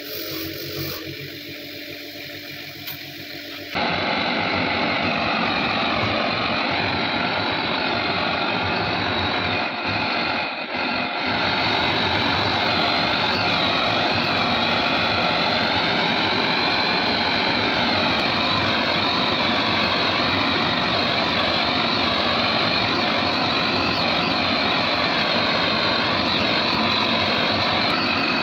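For the first few seconds a bench grinder's wire wheel spins while a small part is held to it. From about four seconds in, a gas torch burner makes a loud, steady roar as its flame heats the steel AK-47 receiver, dipping briefly about ten seconds in.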